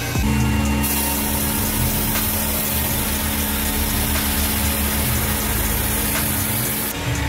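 Tormach 1100M CNC mill cutting a 5-inch aluminium billet under flood coolant: a steady spindle tone with low rumble, and a high hiss of coolant spray and cutting that starts about a second in and stops shortly before the end.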